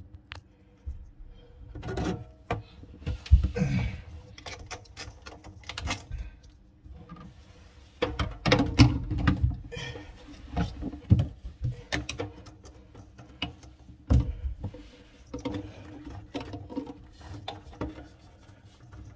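Irregular clicks, knocks and rustling of faucet hoses and plastic fittings being handled and fitted under a kitchen sink, with a few duller thumps.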